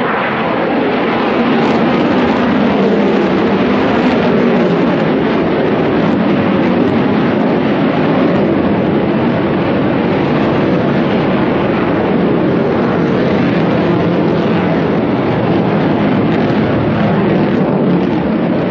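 Aircraft engine roar, loud and steady, swelling slightly about a second and a half in.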